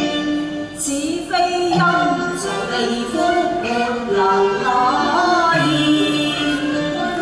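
Cantonese opera singing with traditional instrumental accompaniment: a melodic line of held notes stepping up and down in pitch.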